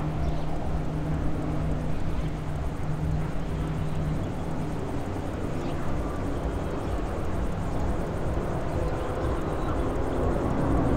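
Airbus A350 airliner flying overhead on approach, its Rolls-Royce Trent XWB engines making a steady, low rumbling drone with a faint hum, growing slightly louder near the end.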